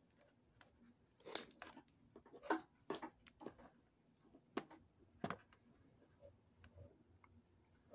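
Light clicks and knocks from hands handling a plastic microwave fan assembly and its wires on a wooden table, about eight in all, bunched between one and five and a half seconds in, with the fan itself not running.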